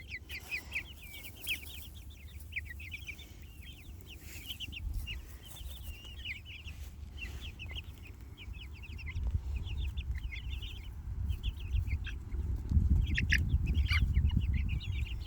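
A flock of young Jersey Giant meat chickens peeping and chirping, with many short, high, falling peeps overlapping throughout. A low rumble runs underneath and grows stronger in the second half.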